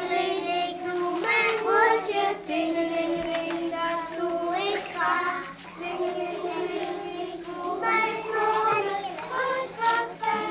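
Young children singing together, holding long steady notes.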